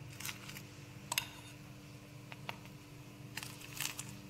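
Metal spoon spreading butter over bread slices: a few soft, brief scraping strokes over a faint steady hum.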